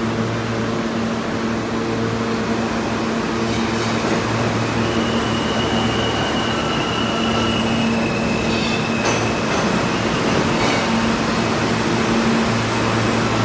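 New York City R160 subway train pulling into the station, its wheels rumbling on the rails, with a high squeal from about five to nine seconds in that steps down slightly in pitch, and a couple of sharp clacks. A steady low electrical hum runs underneath.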